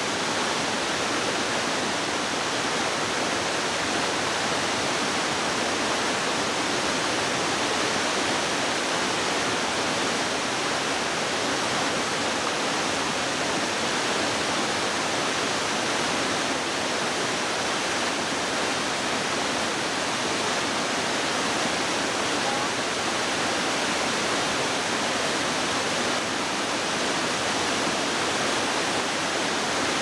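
A many-tiered waterfall rushing steadily as water spills over stepped rock ledges into a pool, an even, unbroken wash of water noise.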